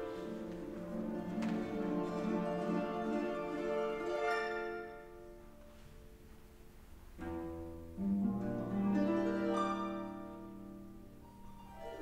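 Paraguayan harp played solo: plucked melody and chords ringing on, with a quick sweeping run about four seconds in, a softer passage, then strong new chords struck about seven and eight seconds in.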